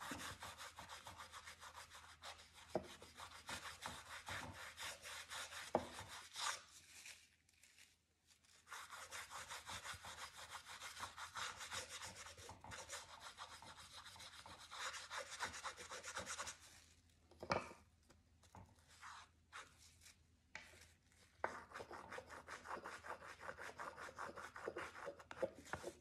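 Tissue paper rubbed quickly back and forth over oil pastel on a small canvas board to blend the colour: a faint, fast, scratchy rubbing. It pauses about seven seconds in and again from about seventeen to twenty-one seconds.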